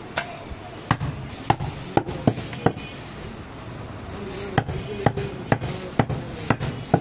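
Large butcher's cleaver chopping goat ribs into pieces on a wooden chopping block: about six sharp chops in the first three seconds, a pause, then about six more.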